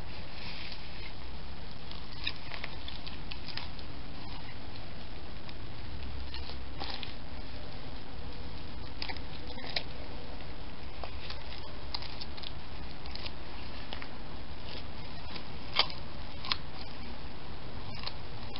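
Black fabric ballet flats squelching in wet mud as the feet shift and press down: scattered short wet squishes and clicks, the loudest two a little before the end, over a steady low rumble.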